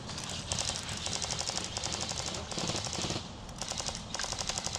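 Airsoft guns firing in full-auto bursts: several quick rattling strings of rapid shots, each lasting about half a second to a second, with short breaks between them.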